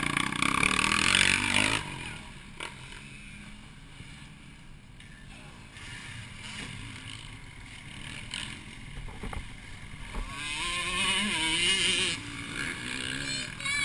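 Motocross bike engine passing close by, loud at first and fading within about two seconds. About ten seconds in, a dirt bike's engine swells again, its pitch rising and falling as the rider works the throttle.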